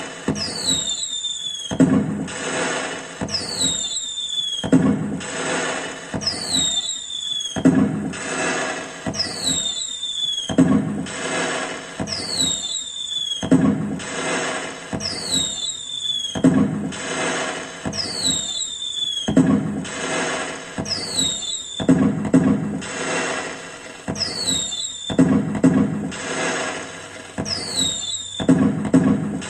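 Firecracker sound effect played by a pixel-LED cracker tree controller: a high falling whistle followed by a burst of bangs and crackle, repeating about every two seconds.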